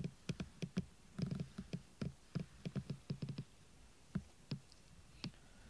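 A hand patting and rubbing a fleece blanket with a cat underneath: a string of soft, irregular taps and rustles that thins out after about three and a half seconds.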